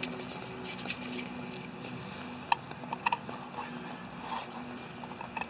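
Light clicks and taps of a metal canteen cup being handled on its small camp stove, with two sharper clicks about two and a half and three seconds in, over a faint steady background.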